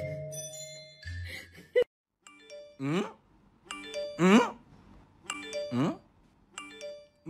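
A cat meowing three times, each call gliding in pitch, over light chiming mallet-percussion music.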